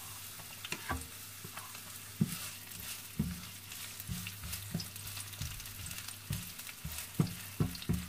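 Sliced onions sizzling in hot olive oil in a non-stick wok, with irregular clicks and scrapes of a wooden spatula stirring them and pushing the last slices off a plastic cutting board.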